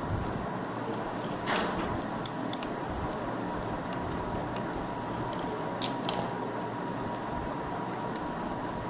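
Steady room noise like a running fan, with a faint steady high tone, and a few light scrapes and clicks of a small screwdriver on a mobile phone's circuit board: one scrape about a second and a half in and two quick clicks about six seconds in.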